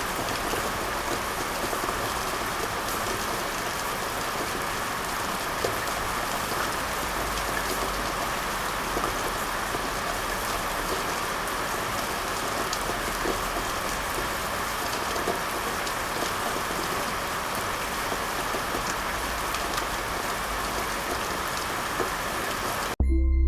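Steady rain falling, an even hiss with scattered drop ticks, cut off near the end when music begins.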